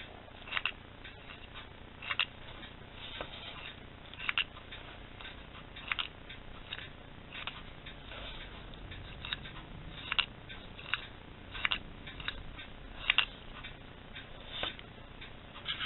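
Wooden reproduction ancient Egyptian toy, a jointed wooden figure rocking over a block and stone, worked by hand: about ten light, sharp clacks, one every second and a half or so, as the figure's parts knock together.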